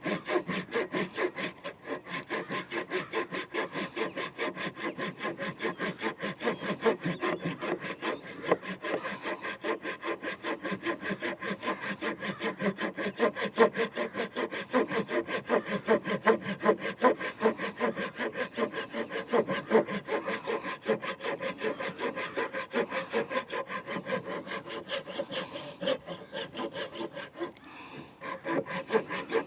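Kerye mini Japanese-style folding pull saw, its fine-tooth blade cutting through a stick of wood in steady back-and-forth strokes, about three a second, with a brief pause near the end.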